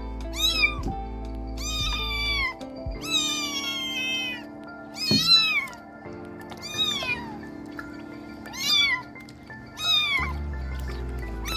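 Kittens meowing: a string of high-pitched meows, roughly one every second and a half, with one longer drawn-out meow about three seconds in.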